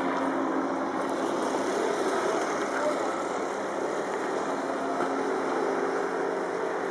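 A motor engine running with a steady drone.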